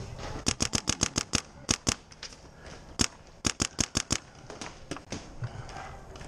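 Dye DAM paintball marker firing rapid strings of sharp shots. About eight come in quick succession in the first second and a half, then a few singles, then another fast string of about six around four seconds in, followed by a few fainter pops.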